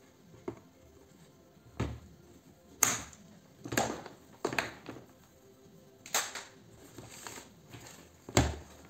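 Hand tools and the ironing station's plastic housing and hose being handled and set down on a workbench during disassembly: irregular sharp knocks and clicks, about seven in all.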